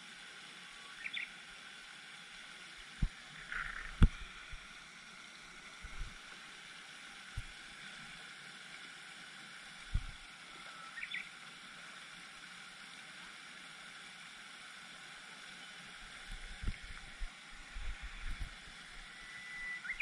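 Quiet pond ambience: a steady faint hiss of water from a spray fountain, a few short high bird chirps, and scattered low thumps that come more often near the end.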